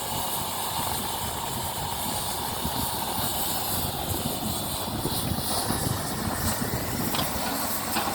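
Excavator running steadily while loading soil, a continuous engine drone with a faint whine that shifts in pitch partway through.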